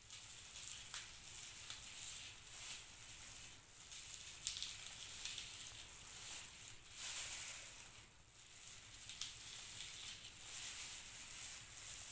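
Faint, irregular crisp scraping and crackling as a small knife cuts out the centre of a raw red onion, with plastic food-prep gloves rustling.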